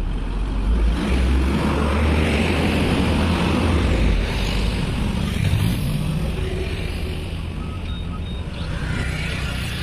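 Heavy truck driving past close by: a deep engine and tyre rumble that is loudest over the first four seconds or so, then eases into steadier road traffic with passing motorcycles.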